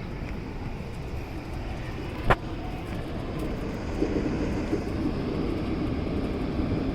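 Morrison-Knudsen 3200-series 'L' train running on the elevated track as it leaves the station, a steady rumble with one sharp clack about two seconds in and low tones rising into it from the middle on.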